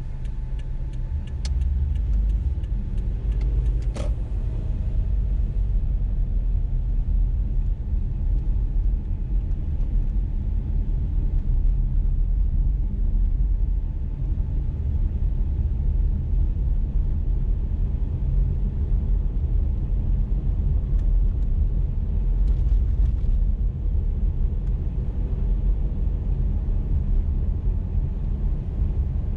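Car driving on a road, a steady low rumble of engine and tyres, getting louder about a second in. Light regular ticking in the first few seconds ends with a sharper click about four seconds in.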